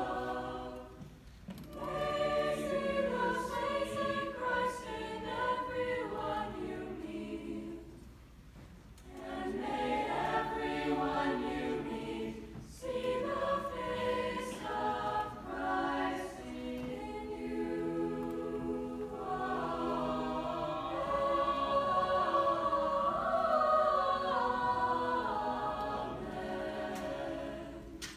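Mixed-voice chamber choir singing unaccompanied, in long phrases broken by short breaths about a second in, at about eight seconds and at about twelve seconds; the last phrase ends near the close.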